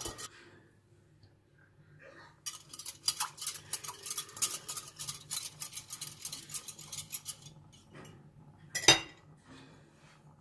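A metal spoon clinking quickly against a dish, about five clicks a second for several seconds, as tapioca starch slurry is stirred for a thickened rad na sauce. One loud sharp knock comes near the end.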